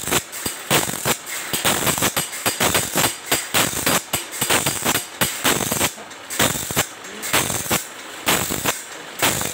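Automatic bandsaw blade sharpening machine grinding the saw's teeth one after another: the abrasive wheel rasps against each steel tooth amid a steady run of sharp metallic clacks as the blade is stepped on, about two strokes a second.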